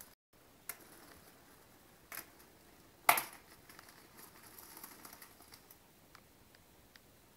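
A baby's hands patting a hard marble floor while crawling: scattered soft taps and light clicks, with one sharp, loud knock about three seconds in.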